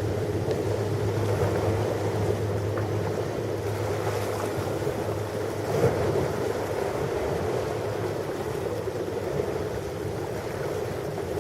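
Ocean surf: a steady, continuous wash of waves with no distinct breaks.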